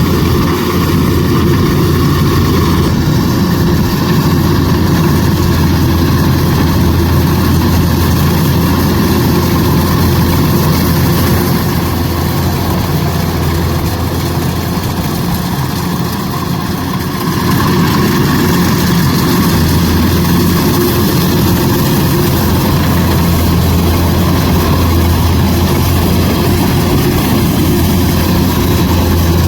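Kubota DC105X rice combine harvester running steadily with its diesel engine and machinery humming. The sound eases slightly midway and picks back up after a few seconds.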